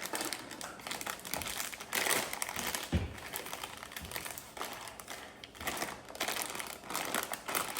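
Packaging being handled, crinkling and rustling in irregular bursts, with one dull knock about three seconds in.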